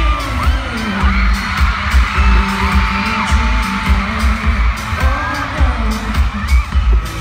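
K-pop song played live and loud through a concert sound system, with a heavy bass beat and singing. High screams from the crowd rise over the music.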